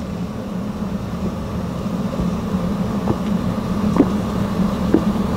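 A man gulping draught beer from a large mug, with short swallowing sounds about a second apart in the second half, over a steady low hum.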